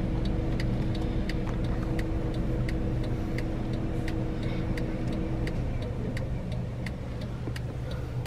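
Car engine idling, heard from inside the cabin, with the turn-signal or hazard indicator ticking steadily at about two clicks a second. A steady hum in the mix stops a little after halfway.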